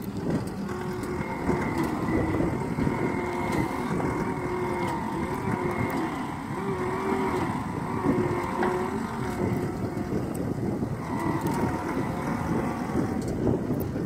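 Diesel engine of a John Deere 333E compact track loader working under load as its backhoe attachment digs, with a wavering hydraulic whine that holds from about a second in until near the end.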